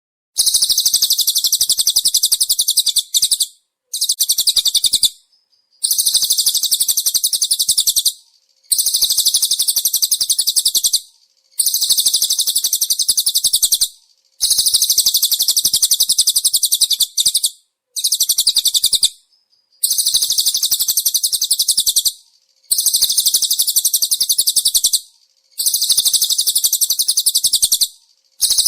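Sunbird (kolibri sogok ontong) singing a masteran song: about ten phrases of very rapid, tightly packed high twittering notes, each a second to three seconds long, separated by brief pauses.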